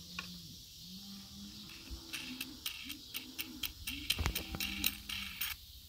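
Quick light metallic clicks and ticks as a wing nut and flat washer are spun by hand onto a quarter-inch steel J-bolt, thickest from about two seconds in until just before the end. A faint low hum runs underneath.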